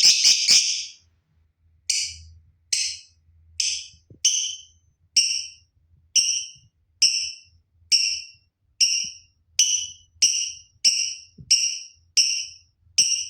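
Lutino lovebird calling with loud, sharp, high-pitched chirps: a quick burst of three at the start, then a single call repeated steadily about once every 0.8 seconds, the challenge call of a fighter bird calling out to a rival.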